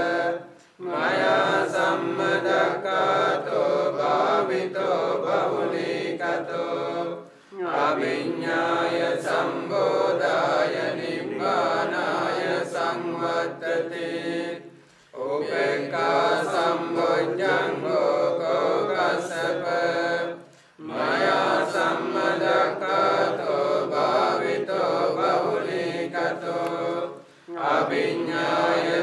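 A group of Theravada Buddhist monks chanting Pali paritta verses. The chant runs on, with a brief pause for breath about every six to seven seconds, five times in all.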